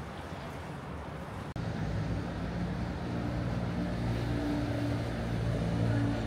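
City street traffic noise. About one and a half seconds in, the sound drops out for an instant, and a vehicle engine's steady low hum then takes over, growing a little louder near the end.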